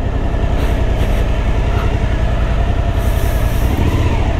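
Steady, loud, low mechanical rumble with a faint hiss briefly rising over it about three seconds in.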